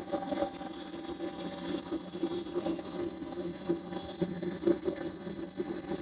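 Gas furnace running with its burners lit at normal manifold pressure: a steady, uneven rushing rumble with a faint hum.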